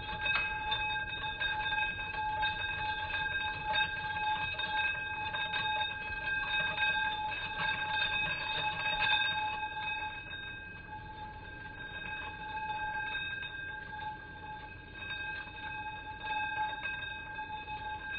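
A 1903 Century Electric 5 hp single-phase repulsion-start motor running steadily: a constant high whine over a low hum, with a light crackle throughout.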